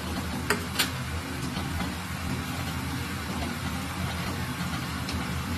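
A steady low machine hum, with two sharp clicks close together about half a second in.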